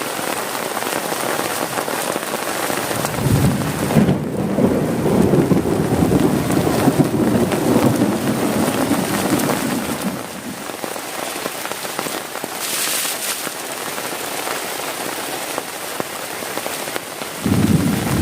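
Heavy rain beating on a tent, a steady dense hiss. A low rumble of thunder swells in a few seconds in and fades after several seconds, and another begins near the end.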